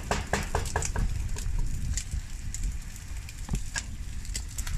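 Knife chopping meat on a plastic cutting board, quick strokes about five a second for the first second, then a few scattered knocks, over a steady low rumble.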